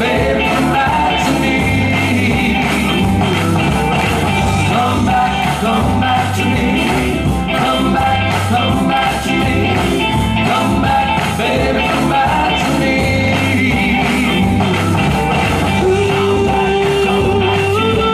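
Live band playing rock and roll music with a steady drum beat, bass and melody lines, without lyrics.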